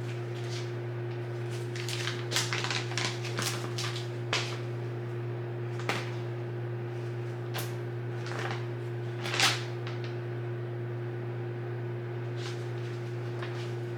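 Scattered light clicks and knocks of a small thermoelectric wine cooler being handled and its control buttons pressed, the loudest knock about nine and a half seconds in. A steady low electrical hum runs underneath.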